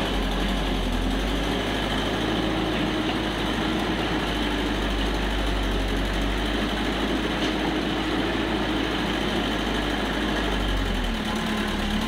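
Hitachi excavator's diesel engine running steadily while the machine digs clay, its note shifting slightly now and then as the work loads it.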